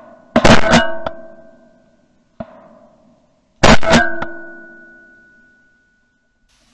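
Shotgun fired twice, about three seconds apart, heard close up from a camera mounted on the barrel. Each report is a pair of sharp cracks followed by a ringing tone that fades over a second or so, and a faint click comes between the two.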